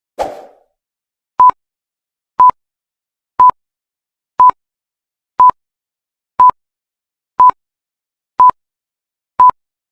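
A short, noisy sound-effect hit that fades quickly, then a steady series of short, loud, single-pitched electronic beeps, one each second, nine in all.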